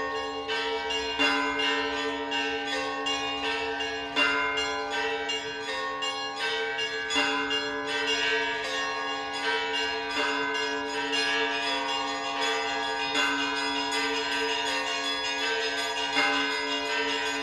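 Orthodox church bells ringing in a continuous peal: many small bells struck in quick succession over the lingering hum of larger bells, with a heavier stroke about every three seconds.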